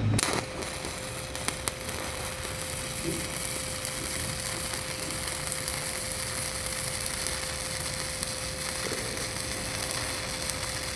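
Stick welding arc from a 309 stainless electrode on carbon steel plate at 70 amps: the arc strikes just after the start, then a steady crackling sizzle as the rod is dragged along the first bead of the cap pass. A thin steady tone runs underneath, with a few sharp ticks near the start.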